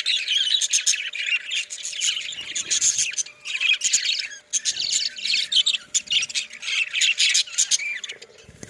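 A flock of budgerigars chirping and squawking continuously, many birds at once in a dense, overlapping chatter.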